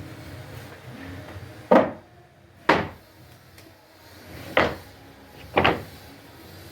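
Four sharp wooden knocks in two pairs, each about a second apart, with a short ring-out after each, typical of pieces of wood being knocked or set down on a bench.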